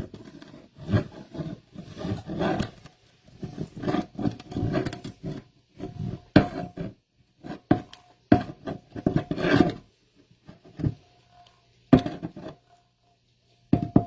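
Pampered Chef hand-cranked can opener grinding around the rim of a can in short, uneven bursts as the knob is turned, with brief pauses between turns.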